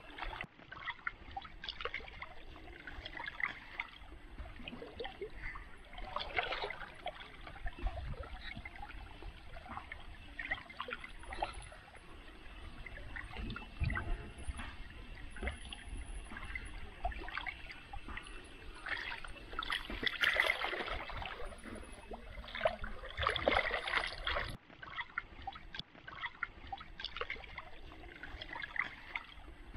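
Shallow muddy water splashing and sloshing in irregular bursts as bare hands grope along a channel bank for crabs, with a few louder bouts of splashing.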